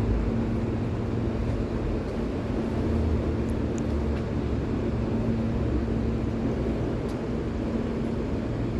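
New York City subway M train running steadily on the track: a continuous low rumble of wheels and running gear with a steady hum.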